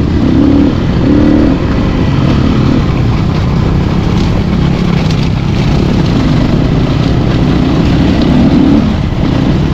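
Motorcycle engine running as the bike rides over a rough dirt track, its note rising and falling with the throttle, under loud wind rush on the helmet-mounted microphone.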